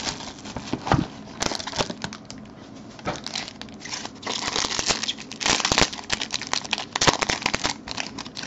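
Clear plastic wrapper on a pack of trading cards crinkling as it is pulled and torn open by hand, in dense irregular crackles.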